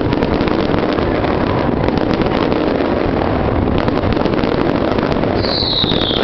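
Dense fireworks barrage: many shells bursting and crackling so close together that they merge into a steady rumble. A whistling shell's whistle falls in pitch near the end.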